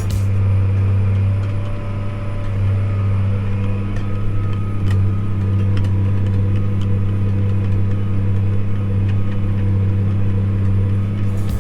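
Tractor engine running at a steady speed, a low, even drone with no change in pitch.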